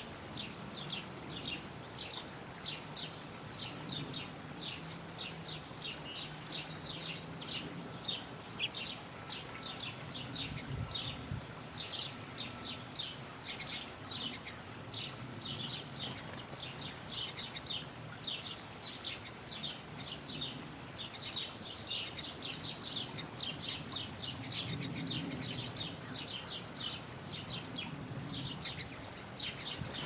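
Small birds chirping, a steady run of short high chirps at about two or three a second.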